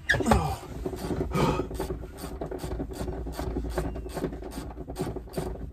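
Hand work on a car seat during its removal: a short falling squeak, then rubbing and scraping with a run of small clicks about every quarter second over a steady low rumble.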